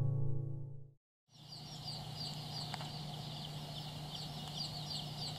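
The last guitar chord of the intro music dies away in the first second. After a short gap, a box of Silver Laced Wyandotte baby chicks peeps continuously: many overlapping short, high, falling peeps over a steady low hum.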